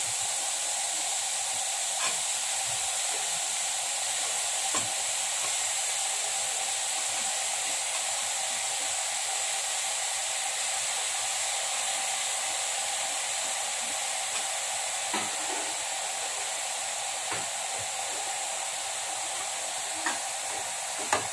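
Chopped gourd and onion sizzling steadily in hot oil in an aluminium kadai, with a few light taps of the ladle against the pan.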